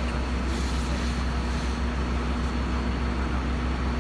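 Steady engine drone of a fire engine running its pump to feed the hose lines, a constant low hum, with a spell of hiss between about half a second and two seconds in.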